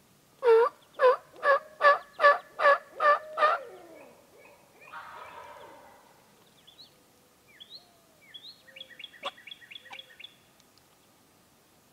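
Turkey yelping: a run of eight loud, evenly spaced yelps, about two a second, followed by a short, quieter raspy stretch. Small songbirds chirp faintly near the end.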